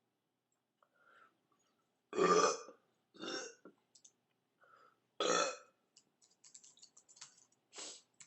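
A young woman belching: loud burps about two and five seconds in, each about half a second long, with shorter, quieter burps after each. Faint clicking sounds between them near the end.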